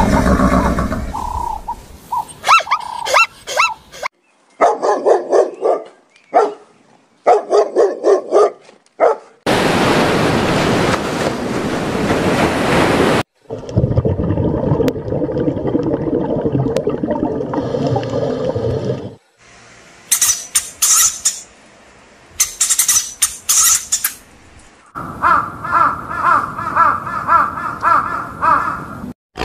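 A run of different animal calls cut one after another in clips of a few seconds each, with short gaps between them. The clips include repeated pitched calls, a stretch of noisy sound, and high chirping bursts.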